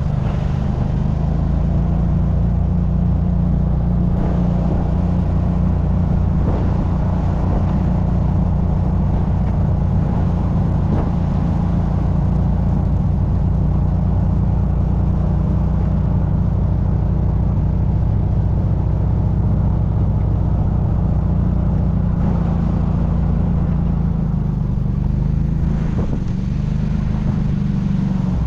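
Buran snowmobile's two-stroke engine running steadily under way, easing off slightly near the end.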